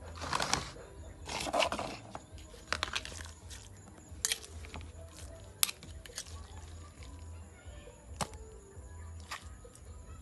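Metal spoon scraping pounded paste around a stone mortar, two scrapes in the first two seconds, followed by scattered sharp clicks as the spoon knocks against the stone and the plastic container.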